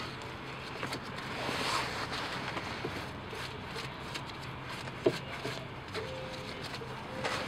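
Flat-blade screwdriver scraping caked dirt and grime off a car's steering rack: irregular scratching and ticking, with one sharp click about five seconds in.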